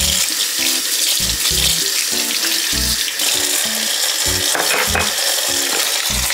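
Kitchen tap running in a steady stream into a stainless-steel sink during dishwashing. Light background music plays underneath.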